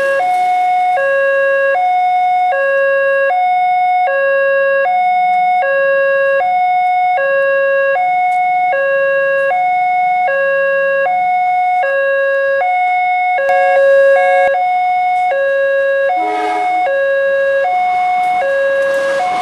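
Indonesian railway level-crossing warning alarm sounding from the loudspeaker on the signal post. It is an electronic two-tone signal, alternating steadily between a low and a high tone, each held just under half a second, and warns that the crossing is closed for an approaching train. A brief louder noise cuts in about two-thirds of the way through.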